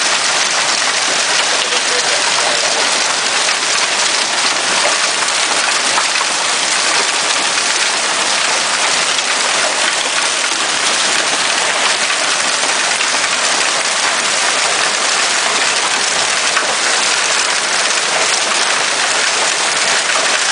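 Hail and heavy rain falling hard on the ground, a dense, steady hiss of countless small impacts with no let-up.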